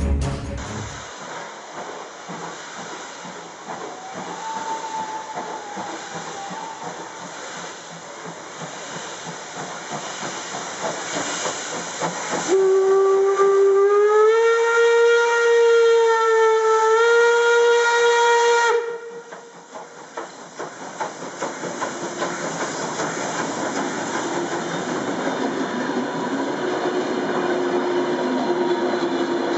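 DRB Class 50 steam locomotive hissing steam as it moves past. About halfway through it gives one long whistle blast of about six seconds, rising slightly in pitch as it opens up and then holding steady. The whistle cuts off sharply, and the hiss and rolling noise of the passing coaches carry on.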